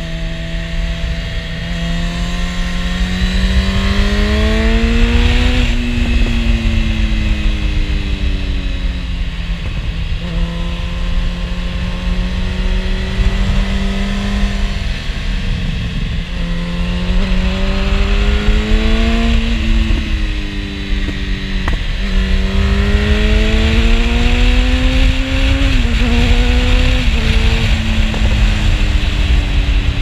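2013 Yamaha FZ8's inline-four engine running through an SC Project oval carbon exhaust while riding, under wind rush. Its pitch climbs in several pulls, about two, sixteen and twenty-two seconds in, and falls back in between.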